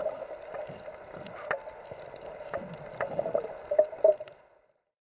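Underwater ambience: a steady hum and water noise with scattered sharp clicks, fading out shortly before the end. It is not a dugong call.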